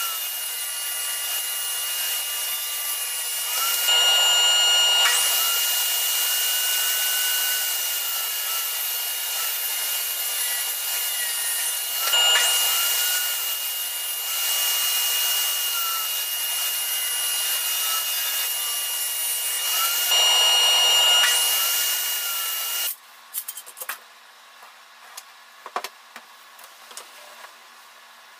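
Table saw running with a high steady whine while thin wooden strips are ripped, the blade biting louder three times, about 4, 12 and 20 seconds in, each cut lasting a second or so. The saw sound stops abruptly near the end, leaving quiet light clicks of wood pieces being handled.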